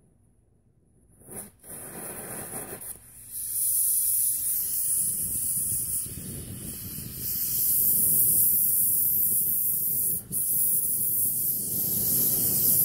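Oxy-propane cutting torch being adjusted after lighting: a sharp pop about a second and a half in, then the steady hiss of the flame, which grows louder in steps at about three and a half and seven and a half seconds as the oxygen is opened up toward a blue preheat flame. The hiss falters once, briefly, about ten seconds in.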